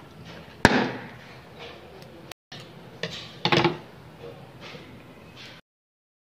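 Rubber balloon snipped with scissors and bursting with a single sharp pop about half a second in, followed by softer rubbing and handling of the burst rubber as it is peeled off its filling, with a louder stretch of handling noise around three and a half seconds in.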